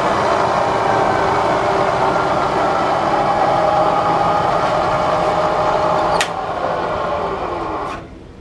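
Bridgeport Series II Special milling machine's 2 hp spindle motor and drive running in low range, with a steady whine that sinks slowly in pitch. About six seconds in, a sharp click comes as it is switched off. The whine then drops faster and dies away as the brake stops the spindle.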